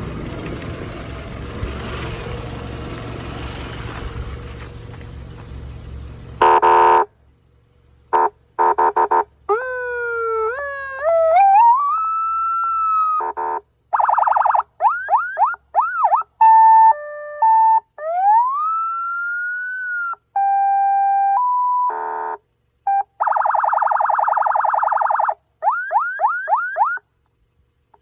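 A vehicle engine running with a low hum under general noise, then from about six and a half seconds in an electronic police siren cycles through its tones with abrupt stops between them: short steady blasts, slow rising wails, a fast yelp, an alternating two-pitch tone and a buzzing horn tone.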